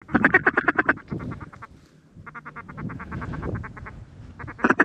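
Mallard duck calls: fast, even runs of quacks, about nine a second, loud for the first second, softer through the middle, and loud again near the end, as hunters call to an incoming flock.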